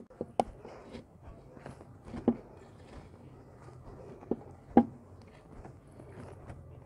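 Hands kneading soft, oiled bread dough in a glazed clay bowl: quiet sticky pressing and stretching noises, with a few sharp taps, the loudest about two and five seconds in.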